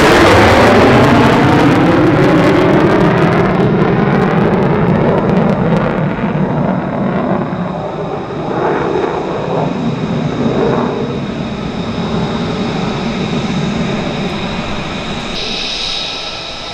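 An F-35A Lightning II's single afterburning turbofan runs in afterburner as the jet climbs away after a pass. Its roar falls in pitch and fades steadily, with crackling over the first several seconds.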